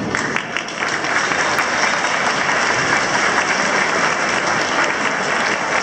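Audience applause breaking out as the music stops, then continuing steadily.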